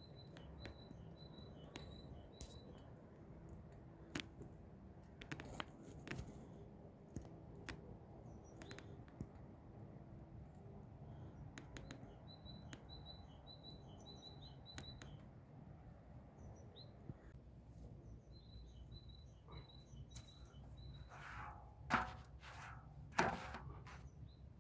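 A small bird chirping in three runs of quick, evenly repeated high notes over a low steady background hum, with scattered sharp clicks throughout and two louder brief noises near the end.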